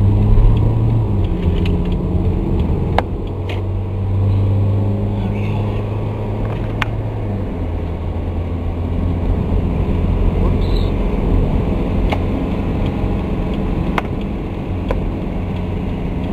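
Car engine and tyre noise on a wet highway, heard from inside the cabin as a steady low drone; the engine note drops a step about seven seconds in. A few sharp clicks come through here and there.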